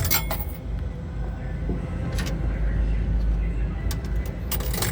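Coin-operated helicopter kiddie ride running, its motor giving a steady low rumble, with sharp metallic clinks at the start, about two seconds in and near the end.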